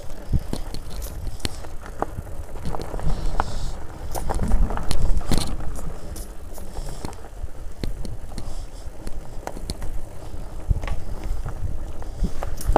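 Enduro mountain bike ridden down a rough dirt and rock trail. The tyres make a steady low rumble on the ground, and many short clacks and rattles come from the bike over the bumps.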